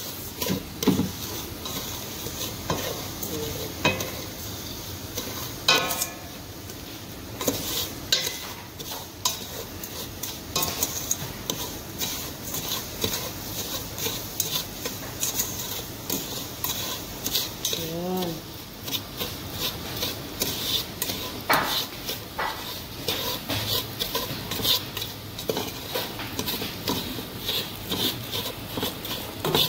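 Wooden spatula stirring and scraping butter and sugar around a stainless steel pot, with irregular scrapes and taps against the metal over a light sizzle of butter melting in the hot pan.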